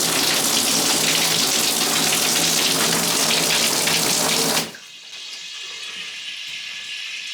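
Water running hard in a bathtub-shower, with a low steady hum under it, cut off abruptly about four and a half seconds in and leaving a faint hiss.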